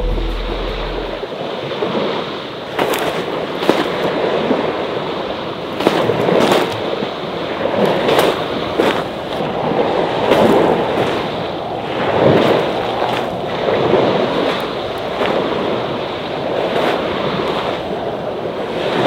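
Sea waves washing onto the shore, the rush swelling and ebbing every couple of seconds, with scattered sharp clicks.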